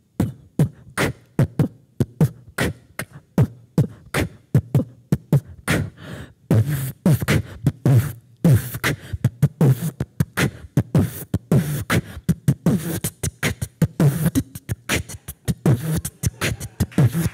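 A woman beatboxing into a handheld microphone: a steady beat of bass-drum thumps and snare hits made with the mouth. About six seconds in it gets busier, with hissing hi-hat sounds filling the gaps.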